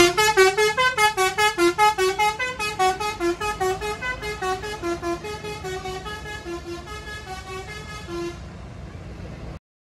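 Basuri V3 telolet bus horn playing a quick melody of short notes, about five a second, growing fainter until it stops about eight seconds in.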